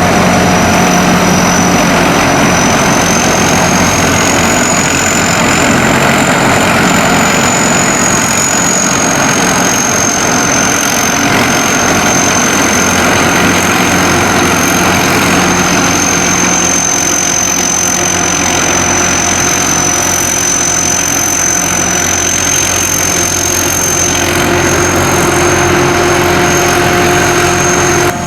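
SAKPATTANA SS-200 mini combine harvester running steadily, its engine note even with a high-pitched whine that rises slightly a few seconds in and then settles back.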